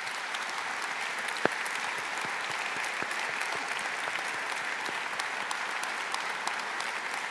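Large audience applauding, a steady, sustained round of clapping, with one single louder sharp click about a second and a half in.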